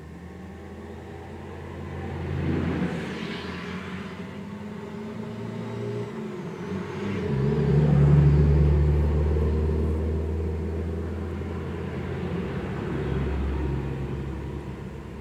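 Traffic passing close by: the diesel engine of an Ashok Leyland passenger bus runs as it drives past, loudest about eight seconds in, with other cars passing before and after.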